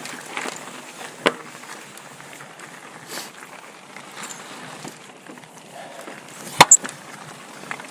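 Pivot Switchblade mountain bike rolling over rocky singletrack: steady tyre and wind noise with a few sharp knocks and clacks from the bike, the loudest a quick double clack near the end.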